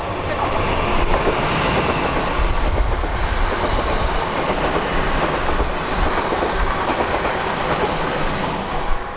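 A train passing on the main line, a steady rush of wheel and rail noise throughout, with wind buffeting the microphone.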